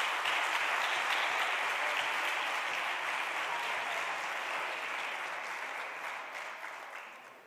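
Applause from the senators' benches in a legislative chamber: steady clapping that thins out and fades away near the end.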